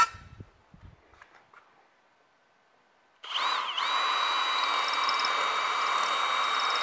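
A sharp click and a few light handling knocks, then about three seconds in a cordless drill spins up and runs steadily, boring a pilot hole into wood.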